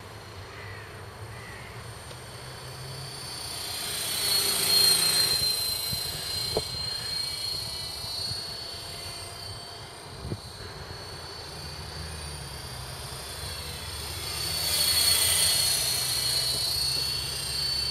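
KDS 450 electric RC helicopter in flight: a steady high-pitched whine from its motor and rotors that swells louder twice, about five seconds in and again about fifteen seconds in.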